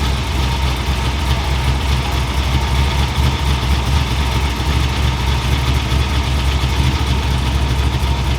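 An engine idling steadily, a loud low rumble that holds an even pace throughout.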